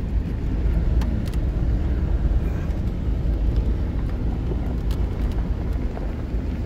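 Pickup truck driving slowly over a rough dirt track, heard from inside the cab: a steady low engine-and-road rumble with a few light knocks and rattles as it goes over bumps.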